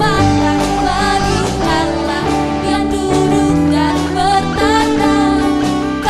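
Pop song with a singing voice over instruments.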